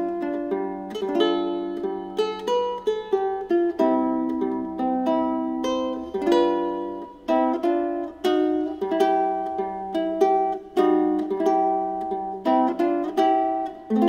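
Ukulele tuned with a low G, played fingerstyle: a Hawaiian-style melody of plucked single notes over low bass notes, each note ringing and dying away.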